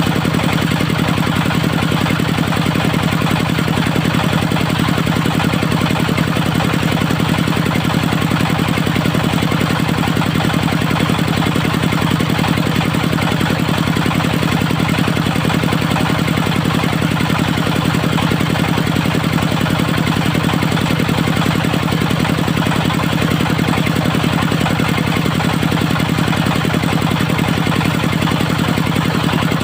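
Engine of a portable circular sawmill running steadily at an even speed, with a fast regular pulsing beat.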